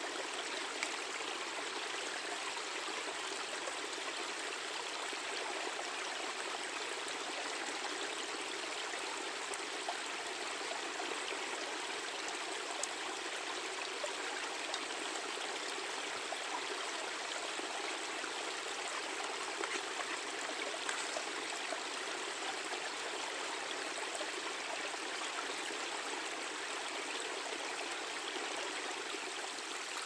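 Small forest brook babbling steadily, with a few faint clicks scattered through it.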